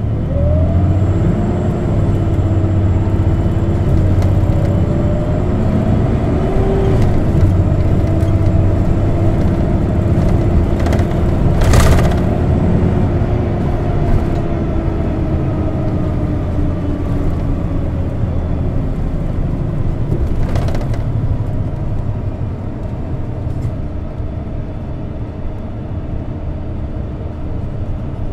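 Isuzu Erga CNG city bus heard from inside its cabin as it accelerates and runs along, with a low rumble and a whine that climbs, holds steady and slowly falls away. There is a sharp knock about twelve seconds in and a fainter one about nine seconds later.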